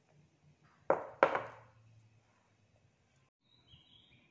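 Two sharp knocks on a round metal cake pan filled with batter, about a third of a second apart, each ringing briefly.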